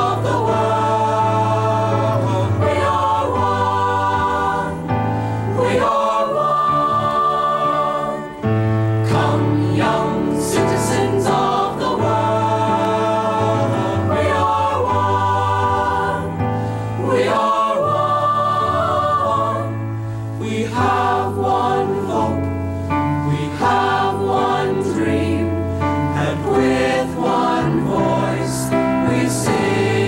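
Mixed choir of male and female voices singing in harmony with piano accompaniment.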